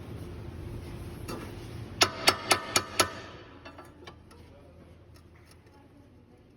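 Five sharp metallic clicks with a short ring, about a quarter second apart, from a tool working on a car's front suspension parts. A steady low hum under them fades away just after.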